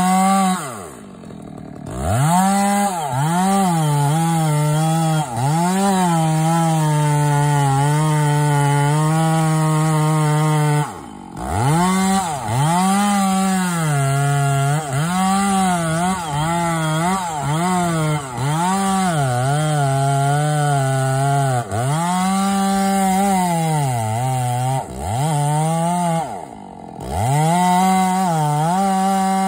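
Two-stroke chainsaw cutting into the base of a large tree at full revs, its pitch dipping and recovering again and again as the chain bites under load. It drops briefly to idle three times.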